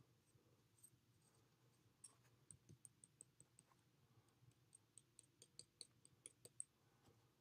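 Faint, small, high-pitched clicks and ticks, a few a second from about two seconds in, while a hand-drill hearth board is lifted off a fresh ember.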